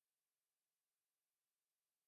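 Silence: a silent track with nothing but a faint, even noise floor.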